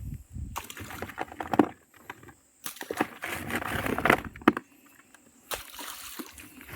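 Wet sloshing and splashing of mud and muddy water in three bursts, each a second or two long, with short pauses between.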